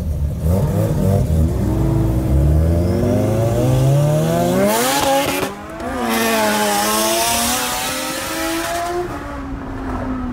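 Lamborghini Huracán's V10 with a modified loud exhaust accelerating hard, heard from inside the cabin. The engine pitch climbs steadily for about five seconds, breaks briefly at an upshift, then runs on at high revs and eases off near the end.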